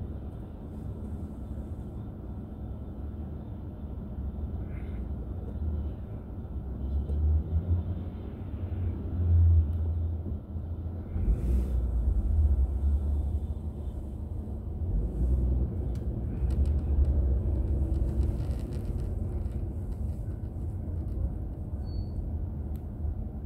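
Low rumble of a car driving, its road and engine noise picked up by a dashboard drive recorder inside the car. It swells louder twice, in the middle and again a little later.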